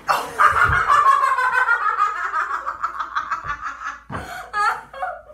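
A person laughing hard in a high pitch: one long stretch of laughter lasting about four seconds, then a few short bursts of laughter near the end.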